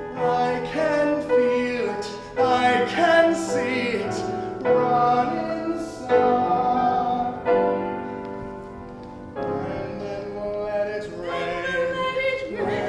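Musical-theatre song: piano accompaniment with a singing voice, in which no words are made out.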